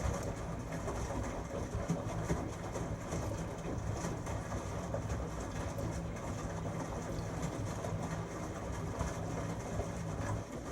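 LG Tromm WD-CR101C front-loading drum washing machine running its motor to turn the drum: a steady hum with a rushing noise over it, which cuts off suddenly near the end.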